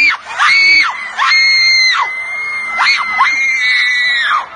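A person screaming: a run of about five very high-pitched shrieks in quick succession, each held for up to about a second.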